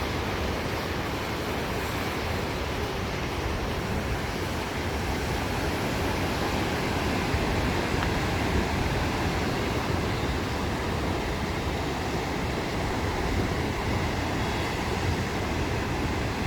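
Ocean surf washing on the beach, mixed with steady wind rumbling on the microphone.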